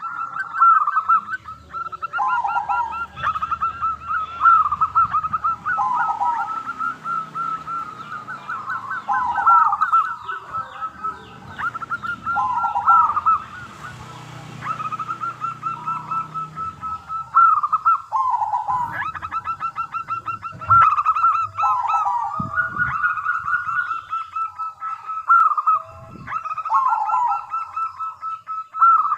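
Zebra dove (perkutut) singing: a continuous run of cooing phrases, each a quick series of staccato notes ending on a lower note, repeated every second or two.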